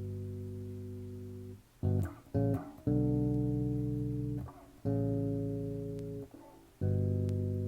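Guitar playing a slow progression of chords, each struck once and left to ring for about two seconds as it slowly fades. A few quicker chord changes come about two to three seconds in.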